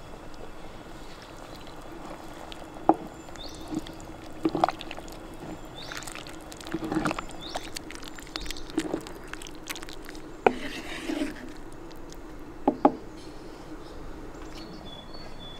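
Ingredients being added to a cast-iron Dutch oven: liquid pouring in, with several sharp knocks against the pot over a steady low hum.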